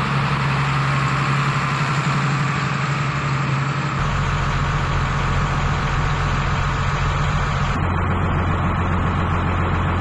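New Holland TM165 tractor's diesel engine running steadily. The sound changes abruptly about four seconds in and again near eight seconds.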